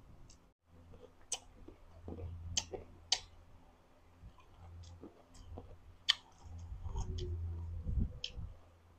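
Close-up mouth sounds of someone chewing a crunchy, very sour green fruit dipped in chili salt: a few sharp crunchy clicks, loudest about three seconds in and again about six seconds in, with soft chewing in between.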